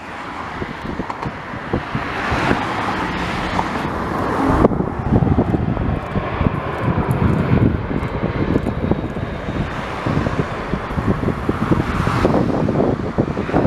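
Airbus A320 jet engines (two IAE V2527-A5 turbofans) at approach power as the airliner flies past on final approach: a steady jet rumble that grows louder over the first few seconds, then holds. Wind buffets the microphone throughout.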